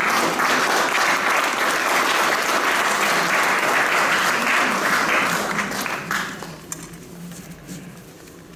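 Audience applauding, strong at first and dying away after about six seconds.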